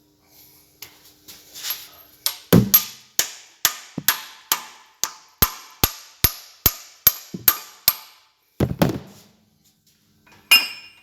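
Hammer blows on a steel punch, driving the mainshaft assembly of a Massey Ferguson 135 six-speed gearbox into place. There are about fifteen sharp, ringing strikes at a steady pace of roughly two a second, then a duller thud and a single metallic clink near the end.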